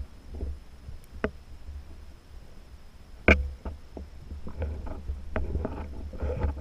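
Underwater knocks and clicks from spearfishing gear being handled, heard through the camera's housing over a low water rumble. A sharp knock comes about a second in and a much louder one about three seconds in, then a run of quicker clicks and knocks to the end.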